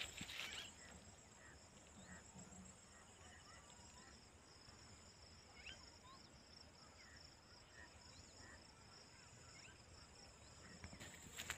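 Faint steady high-pitched insect chirring over a field, with a few short faint chirps scattered through. Brief louder rustling at the very start and again just before the end.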